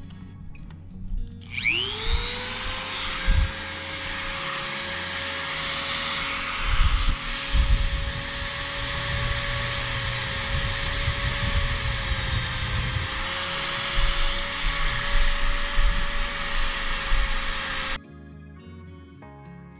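A small handheld rotary tool spins up with a quick rising whine, then runs steadily at high speed while its bit trims broken pieces off a small plastic impeller, and cuts off suddenly near the end.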